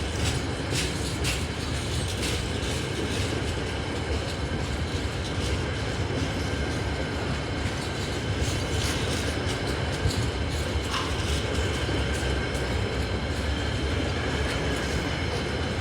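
A train running along the rails: a steady rumble with scattered faint clicks from the wheels.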